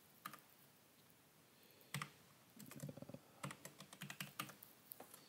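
Faint typing on a computer keyboard: a few single keystrokes, then two short runs of keys from about two and a half seconds in.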